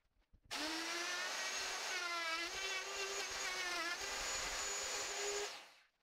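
Electric plunge router running with a steady high whine as it trims a lip of concrete coating off the countertop's sink-opening edge. Its pitch sags briefly twice as the bit bites into the material. It starts about half a second in and stops near the end.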